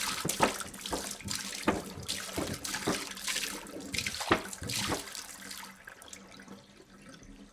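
Water pouring from a jug, splashing and gurgling, the stream thinning and trailing away over the last couple of seconds as the pour ends.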